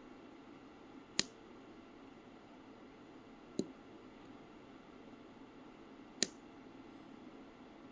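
Tactile push button clicking three times, a couple of seconds apart, with sharper and duller clicks alternating.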